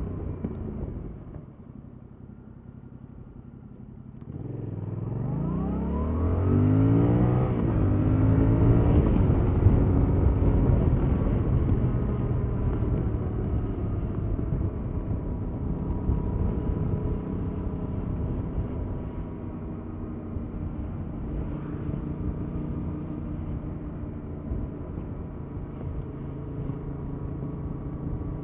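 2021 Yamaha MT-07's stock 689 cc parallel-twin engine under way. It drops quieter for a couple of seconds, then at about four seconds in the revs climb sharply under hard acceleration, and it settles into a steady cruise for the rest.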